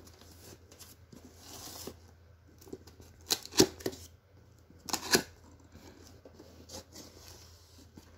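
Cardboard box being handled and turned over on a tile floor: soft sliding and rubbing of the cardboard, then two sharp clusters of knocks and scrapes, about three and a half and five seconds in.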